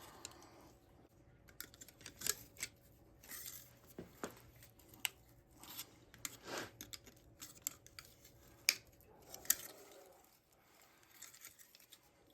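Thin license-plate metal being bent and folded by hand into rose petals: irregular sharp clicks and short scrapes of metal and tool.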